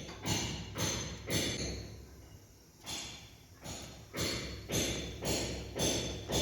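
Footsteps: short scuffing sounds in a walking rhythm, about two a second. There is a break after the first three.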